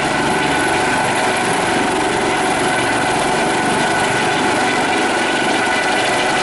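Eurocopter Dauphin rescue helicopter hovering close by: steady, loud rotor and turbine noise with a high whine held on one pitch.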